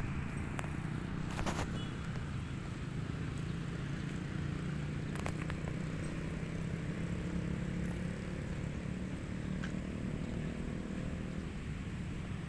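Steady hum of street traffic, with a motor vehicle engine running through the middle and a couple of brief clicks.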